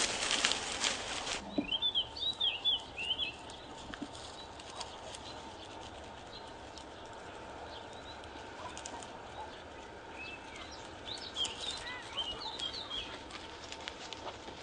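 Small birds chirping in two short flurries of quick high notes, the first at the start and the second about ten seconds in. A loud rushing noise at the very start cuts off abruptly after about a second.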